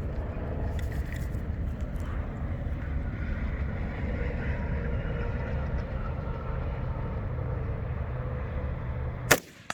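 A single loud gunshot about nine seconds in, over a steady low rumble.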